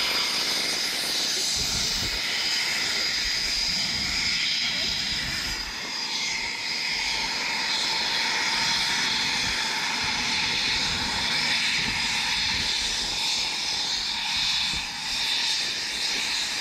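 Fighter jet engines running: a steady rushing noise with a high, even-pitched whine over it.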